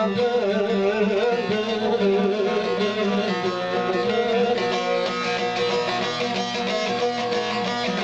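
Turkish folk music: a bağlama (long-necked saz) plays an instrumental passage between sung verses. From about three seconds in it settles into quick, even plucked strokes.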